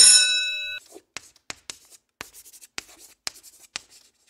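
Chalk writing on a blackboard: a run of short, irregular scratching strokes. A ringing bell tone dies away in the first second.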